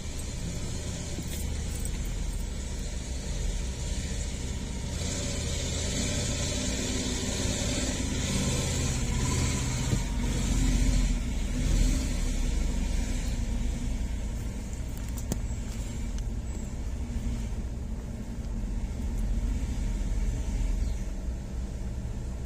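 Heavy diesel dump truck engines running with a steady low rumble that swells to its loudest about eleven seconds in.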